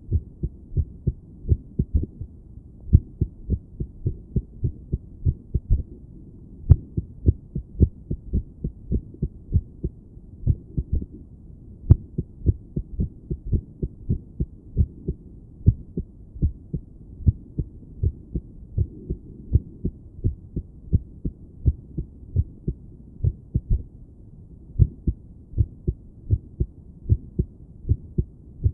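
A human heartbeat heard through a stethoscope pressed to the chest: a run of low lub-dub thumps with uneven spacing, an irregular heartbeat. There are two sharp clicks, about a quarter of the way in and again a little before halfway.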